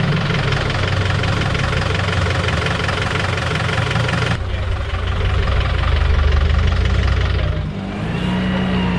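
Classic car engines running nearby: a steady, rough-edged engine sound, then a sudden change about four and a half seconds in to a deeper engine note that swells and then drops away near the end.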